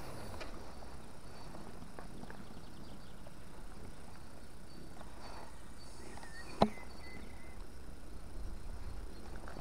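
Spinning reel being cranked during a lure retrieve, a quiet steady working noise, with one sharp click about two thirds of the way through.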